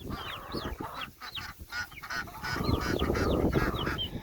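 Chickens and ducks calling in a flurry of short, high squawks and honks, alarmed at being chased. A rougher scuffling noise swells through the middle.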